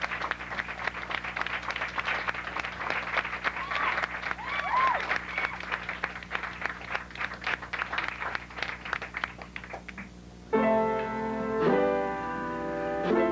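Audience applause that thins out over about ten seconds, with a couple of short rising-and-falling calls from the crowd. Then a piano starts playing chords, the opening of the next song.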